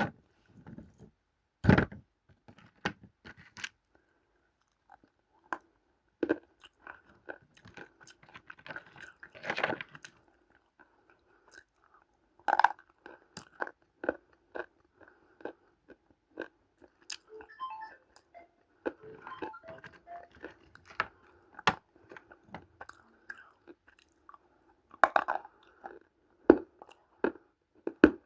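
Biting and chewing dry multani mitti (fuller's earth clay): irregular sharp crunches, with the loudest bites about 2 s, 12 s and 25 s in, and softer crackling chewing between.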